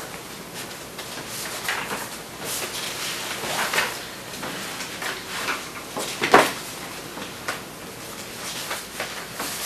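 Sheets of paper rustling and shuffling in irregular short bursts as they are picked up and turned over on a table, with one sharper, louder paper slap or knock on the table a little past six seconds in.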